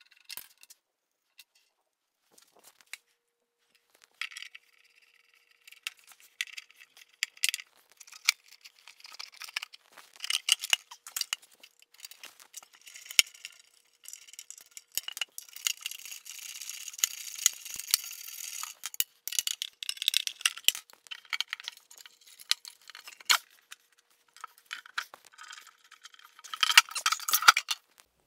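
Small metal clicks, clinks and rattles of hand tools, screws and wires being worked inside a sheet-metal electrical box on an old lathe, with bouts of scraping and rustling. The loudest clatter comes near the end.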